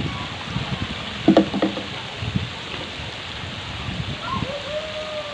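Steady rush of water from a pool's spray-fountain jets falling into the water, with children splashing. A child's short shout comes a little over a second in, and a long call near the end.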